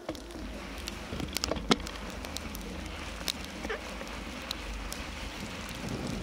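A bicycle's wide tyres rolling through snow, a steady hiss with scattered sharp clicks and knocks, the loudest about two seconds in. Low wind rumble on the microphone underneath.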